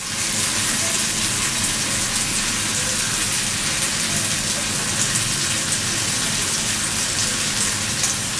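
Seer fish steaks shallow-frying in a cast-iron skillet: a steady sizzle of hot oil with small crackles and pops of spattering running through it.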